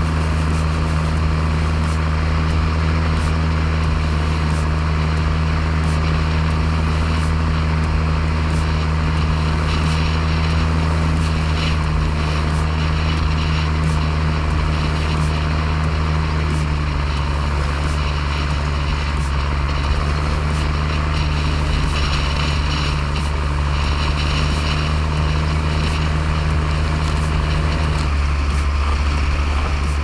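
Deutz Fahr Agrotron MK3 150 tractor's six-cylinder 7.1-litre Deutz diesel running steadily while pushing a front snowplow. Over it is a rushing hiss of plowed snow, which is stronger in the second half.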